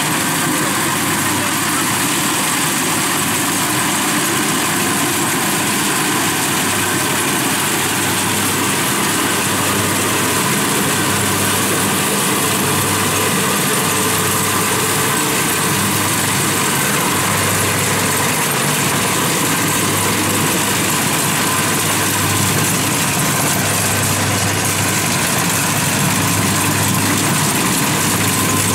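Kubota DC-70 rice combine harvester running steadily while cutting rice: a continuous diesel engine drone under a broad, even mechanical whir from its cutting and threshing machinery.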